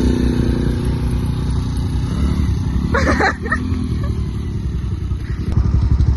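Small quad (ATV) engine running with a steady low pulsing, with a short rattling burst about three seconds in; the engine gets louder near the end.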